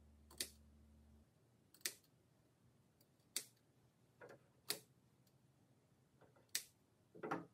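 Scissors snipping through wool-blend billiard cloth at a pocket opening: a sharp snip every second or so, with softer cuts in between and a quick pair near the end.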